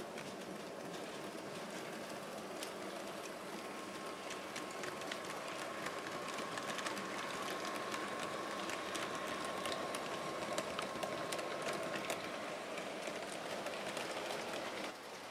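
00 gauge model trains running on the layout track: a steady running noise with scattered clicks of wheels over rail joints and a faint steady motor whine in the middle.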